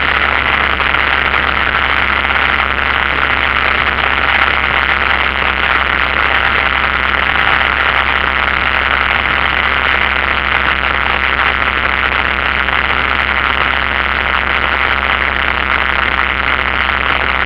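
Single-engine light aircraft's piston engine and propeller in flight, a loud, steady drone heard from inside the cockpit.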